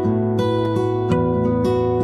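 Background music: a plucked acoustic guitar picking out overlapping notes, a few fresh notes each second.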